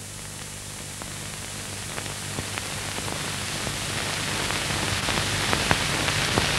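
Hiss and crackle of an old film soundtrack, with a low steady hum and scattered clicks, growing steadily louder.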